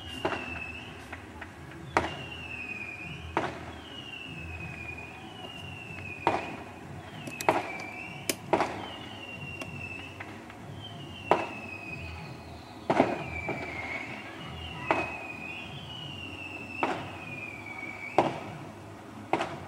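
Fireworks going off in a string of about a dozen sharp bangs, roughly one to two seconds apart. Before most bangs a high whistle falls in pitch, as from whistling shells.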